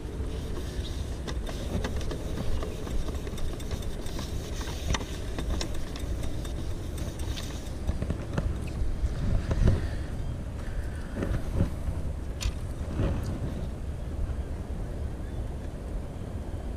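Steady low rumble of distant road traffic, with scattered light clicks and knocks as a metal pochade box is handled and its tray wiped with a rag.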